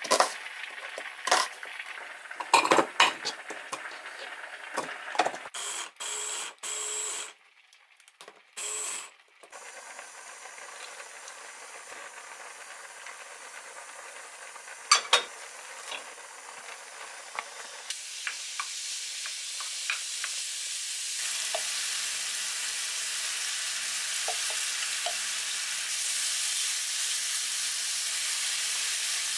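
Kitchen knife cutting an onion on a cutting board in a run of sharp knocks, broken by a few abrupt gaps. Then ground meat and onion sizzle in a frying pan while a wooden spatula stirs them, the sizzle growing louder toward the end.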